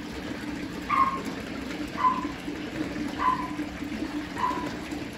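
A short animal call repeated four times, about once a second, each falling slightly in pitch, over a steady low hum.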